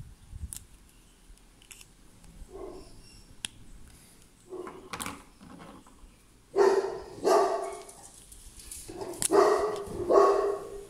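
A dog barking in a string of separate barks, faint at first, then loud from about six seconds in.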